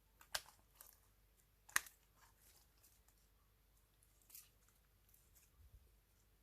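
Slime being worked by hand, giving a few faint, sharp sticky clicks and pops. Two stronger pops come within the first two seconds and one more about four seconds in.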